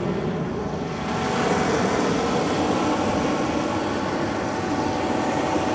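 Boeing 717's tail-mounted auxiliary power unit (APU) running: a steady turbine rush with a high thin whine, growing slightly louder about a second in.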